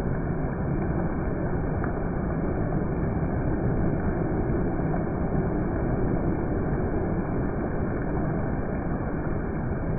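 Heavy monsoon rain falling steadily, an even rush of noise with no breaks or changes.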